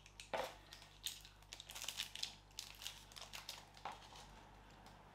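Packaging rustling and crinkling in irregular crackles and clicks as makeup brushes are handled, with a louder crackle near the start; it dies away about a second before the end.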